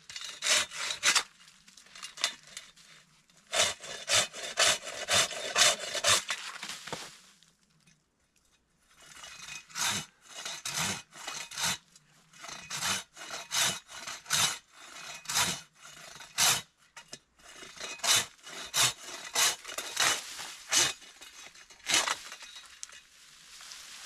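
Long-bladed hand saw cutting through the dry dead branches of a standing conifer, in runs of even back-and-forth strokes, about two a second, with a pause of a couple of seconds about a third of the way in.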